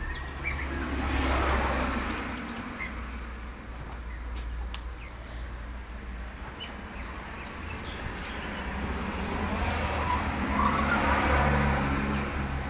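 Motor vehicles passing on a road: the sound swells about a second in, fades, and swells again near the end over a steady low hum. A few faint bird chirps.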